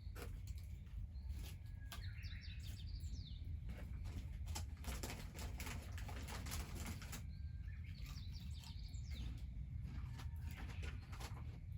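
Birds chirping in two bursts of quick repeated notes, over irregular crackling and popping typical of a wood fire, with a steady low rumble underneath; the crackling is thickest in the middle.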